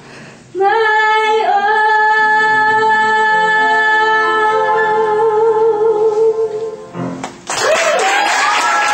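A teenage girl singing solo into a microphone, holding one long final note with vibrato that ends about seven seconds in. Applause breaks out right after, with a cheer sliding up in pitch.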